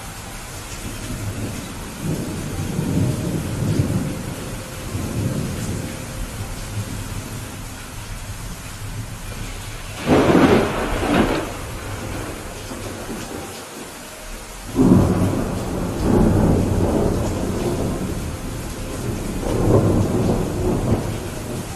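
Steady rain with rolling thunder: low rumbles early on, a sudden loud thunderclap about ten seconds in, another clap about five seconds later that rumbles on for a few seconds, and a further roll of thunder near the end.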